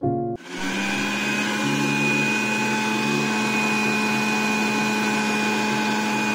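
Prestige Iris 750 W mixer grinder's motor starting about half a second in and then running at a steady speed, a constant hum with a high whine over it.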